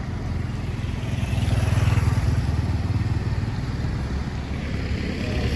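A vehicle engine running, with a low pulsing sound that swells louder about two seconds in and fades back.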